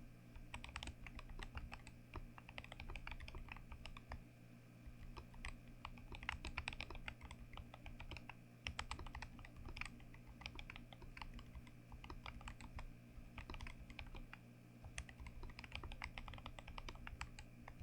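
Mechanical keyboard being typed on: rapid runs of key clicks with short pauses between bursts, over a steady low hum.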